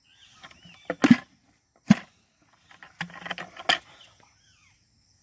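A few sharp knocks or thuds with rustling and scraping in between.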